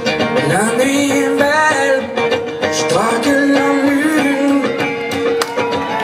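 Live acoustic-guitar song: a guitar strummed in a steady rhythm under a long held melody line that slides up into its notes about half a second and three seconds in.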